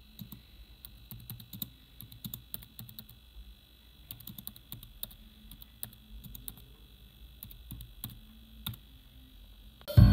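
Typing on a computer keyboard: irregular quick key clicks over a faint steady high hum. Loud music starts suddenly at the very end.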